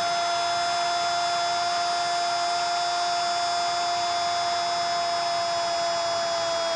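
A Brazilian TV narrator's drawn-out goal cry, one unbroken note held on a steady pitch that sags slightly, over a stadium crowd cheering the goal.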